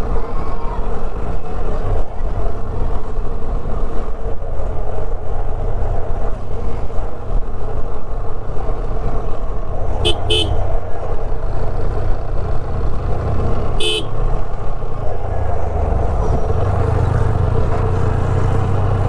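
The single-cylinder engine of a TVS Apache 160 motorcycle running, as a steady low rumble. Vehicle horns give two quick toots about ten seconds in and one short toot about four seconds later.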